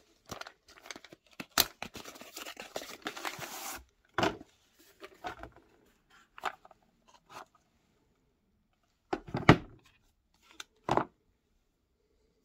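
Cardboard pen packaging handled: about three and a half seconds of scraping and rustling as the box is slid and turned in its white outer sleeve, then a string of separate clicks and knocks as the lidded gift box is opened and the pen is taken out. The loudest knocks come about nine and a half seconds in.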